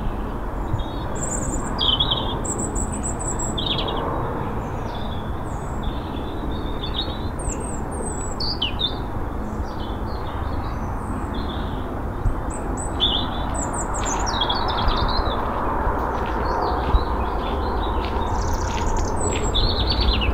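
Several small birds chirping and singing, with short high calls and whistles scattered throughout over a steady low background rush.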